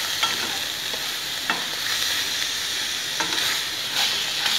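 A spatula stirs and scrapes grated coconut and jaggery in ghee around a kadhai, with a steady sizzling hiss underneath as the jaggery melts. A few separate scrapes stand out.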